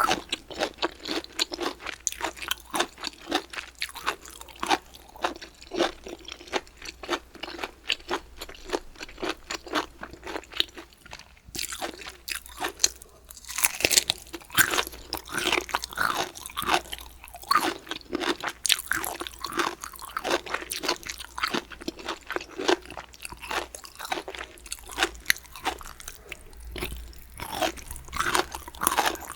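A person chewing crunchy food close to the microphone: a dense run of crisp crunches throughout, with a short pause about halfway and louder crunching after it.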